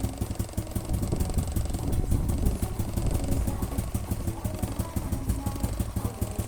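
Motorcycle engine idling steadily, with an even, rapid firing pulse.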